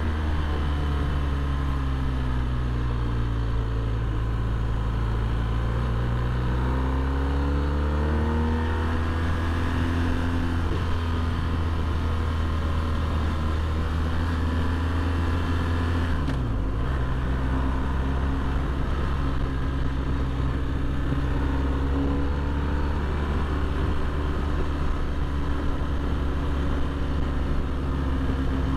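Motorcycle engine running under way through mountain bends. The note falls over the first few seconds, then climbs between about six and ten seconds in, drops briefly and recovers about sixteen seconds in, and then holds steady over continuous wind and road noise.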